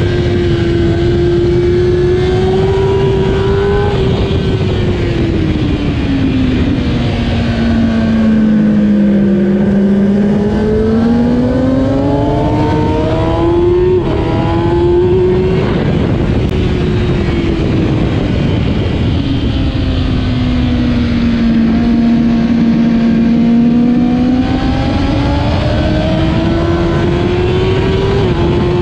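2008 Kawasaki ZX-10R's inline-four engine at race pace. The pitch drops and climbs as the revs fall into corners and build again on the way out, with a quick jump in pitch about halfway through.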